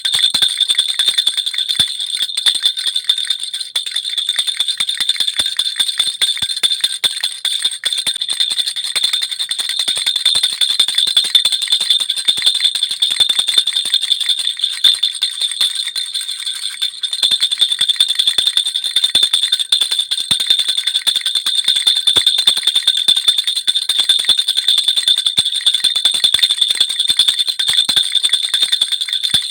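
Baby rattle (jhunjhuna) with small metal bells shaken without a break: a loud, constant jingling of high ringing tones over a dense patter of tiny clicks.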